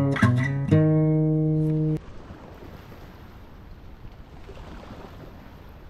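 A few plucked guitar notes, the last one held, cutting off abruptly about two seconds in. A faint, even background hiss follows.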